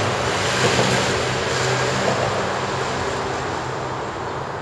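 Steady noise of passing motor traffic with a low engine hum, heard from under a concrete overpass.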